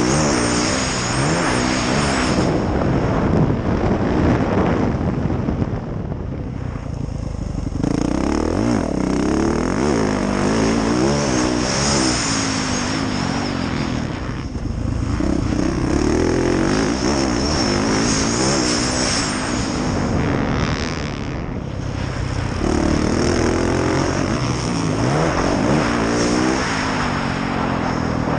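2019 Yamaha YZ450F four-stroke single-cylinder motocross bike engine revving hard, its pitch climbing and falling again and again as the throttle opens and closes, with brief drops in level a few times.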